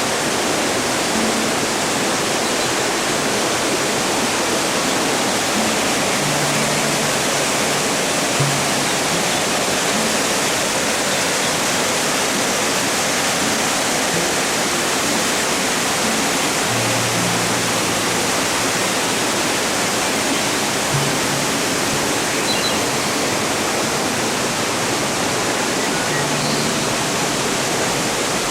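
Waterfall: falling water making a loud, steady, unbroken rush.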